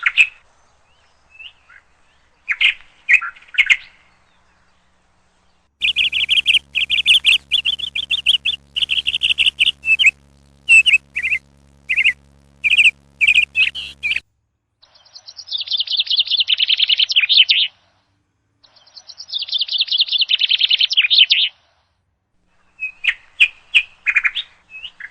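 Sparrows chirping in short bursts of sharp chirps, broken by clean gaps, with two longer runs of rapid chattering notes past the middle.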